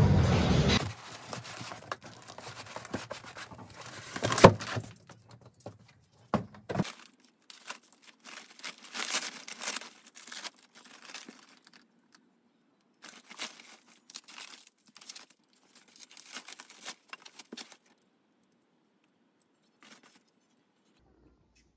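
Background music cuts off in the first second. Then large plastic bags crinkle and rustle as they are handled, in irregular bursts with short pauses and one sharp louder crackle about four and a half seconds in, dying away about eighteen seconds in.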